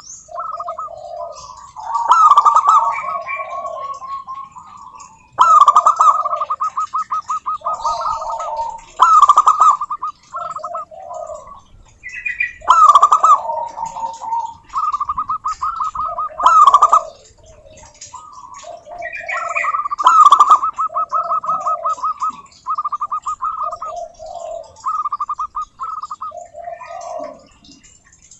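Several zebra doves calling over one another in a busy chorus, with bursts of rapid, stuttering cooing trills and lower coos answering between them.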